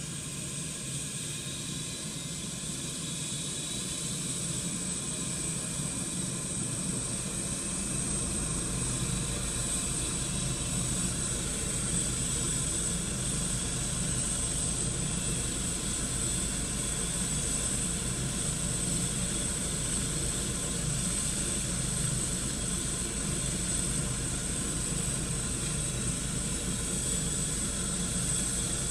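Air-ambulance helicopter on the pad with its turbine running and rotor turning before take-off: a steady high turbine whine over a broad rumble, growing louder through the first several seconds, with a low rotor beat coming in about seven seconds in.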